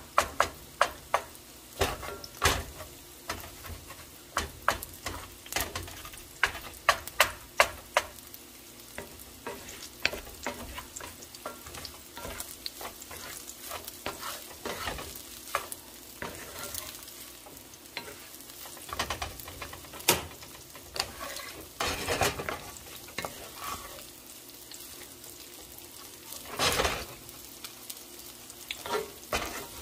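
Slotted wooden spatula stirring and scraping fried rice and scrambled egg around a hot pan, with a light sizzle underneath. Quick sharp taps and scrapes come several times a second for the first several seconds, then give way to sparser, longer scrapes.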